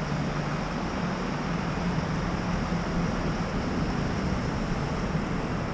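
Steady low rumble and hiss of outdoor background noise on a helmet-mounted camera's microphone, with a low hum running through it.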